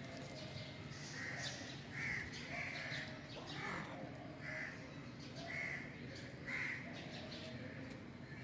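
Birds calling outdoors: short calls repeating irregularly, about once a second.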